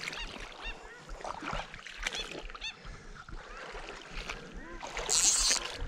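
An angler wading in shallow water, with light sloshing and a louder splash about five seconds in. Small birds chirp in the background.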